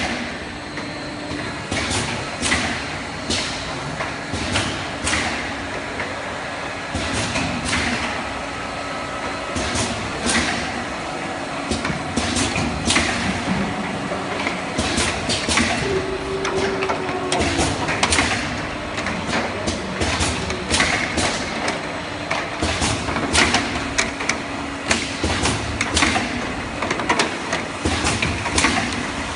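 Automatic bottle filling and cap-closing line running: a steady machine hum with frequent short, sharp clacks as plastic bottles ride the conveyor and turn through the capping star wheel.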